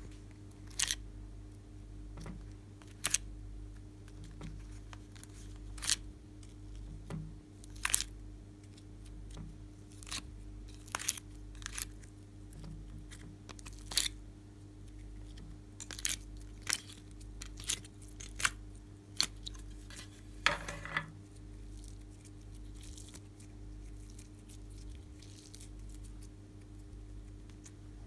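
Slime being pried and pulled out of the compartments of a plastic palette: sharp clicks and snaps every second or two, with a longer crackle about twenty seconds in, over a steady low hum.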